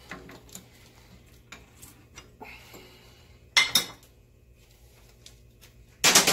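Socket ratchet wrench clicking in short strokes on a change-gear nut of a lathe gear train, then two loud metal-on-metal clanks, about three and a half and six seconds in.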